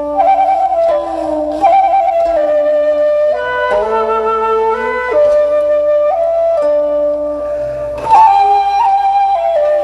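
Instrumental music: a slow melody of long held notes, changing pitch every second or so over sustained accompanying notes.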